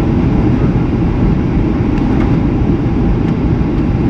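Steady low roar of engine and airflow noise inside an airliner's cabin in flight.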